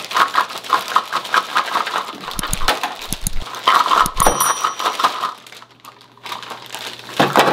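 Clear plastic bag crinkling as it is handled, with the plastic toy food pieces inside shifting. About four seconds in, a short bell-like ding rings out.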